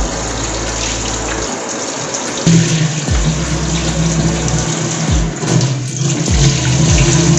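Background music with a recurring kick drum and a low bass line that comes in about two and a half seconds in.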